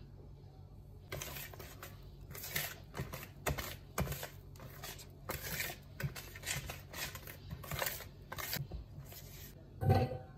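A kitchen utensil stirring ingredients in a mixing bowl: irregular scraping and clinking strokes, with a sharper knock that briefly rings near the end.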